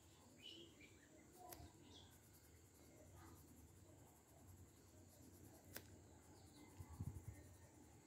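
Near silence, with faint scratching of a colored pencil shading on paper and a couple of small clicks.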